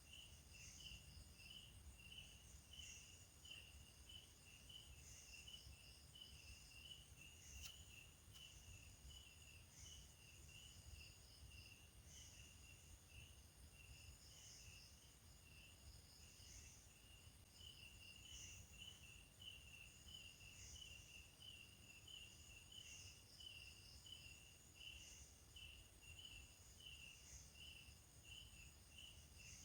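Faint crickets chirping at night in an even rhythm, about two chirps a second, with a higher-pitched insect chirping in repeating clusters over a low background rumble.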